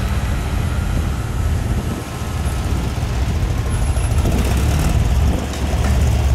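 Lowered vintage Volkswagen Beetle's air-cooled flat-four engine running as the car pulls away at low speed: a loud, steady, deep rumble.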